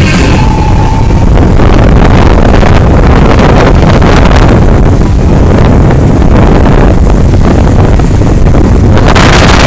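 Motorboat running at towing speed, heard under heavy wind buffeting the microphone. The noise is steady and very loud throughout.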